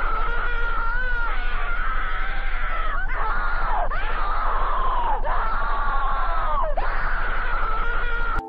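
Distorted, scream-like wailing over a hiss of static and a low hum, the wail dropping in pitch and starting again every second or two with a fast flutter running through it. It cuts off suddenly near the end.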